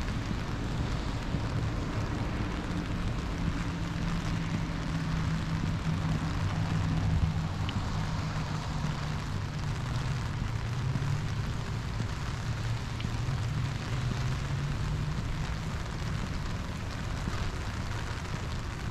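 Steady rain with a low machine hum under it, its pitch wavering slightly.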